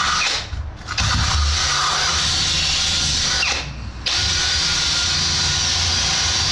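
A handheld grinder working steadily to clean a surface back. The grinding noise breaks off twice, about half a second in and near the middle, and picks up again after each break.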